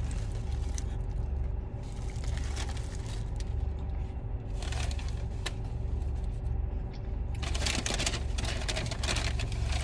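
Rustling and crinkling of food wrappers being handled, in two spells about four and a half seconds in and from about seven and a half seconds to nine and a half, over a steady low rumble.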